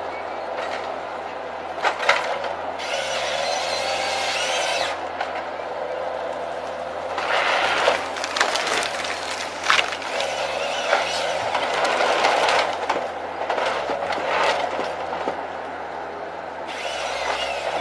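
Tree-cutting machine at work: a steady engine hum under the rushing noise of wood being cut, with several sharp cracks of splintering wood.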